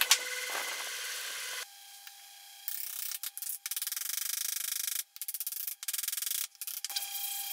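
Wood rubbing and scraping as the two pieces of a half-lap joint are driven together, with a sharp knock right at the start. The sound cuts in and out abruptly several times.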